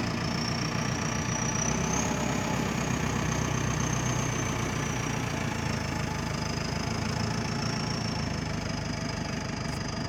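Backhoe loader's diesel engine running steadily while its front loader bucket is lowered to the ground, with a thin high whine over it that rises in pitch over the first two seconds and then slowly falls back.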